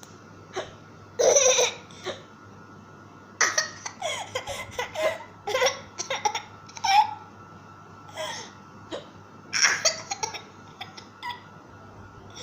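Laughter in short, irregular bursts, mixed with a baby's hiccups.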